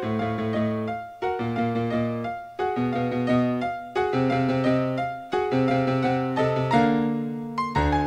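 Background piano music: a slow piece of chords over low bass notes, a new chord struck about every second and a half and left to fade.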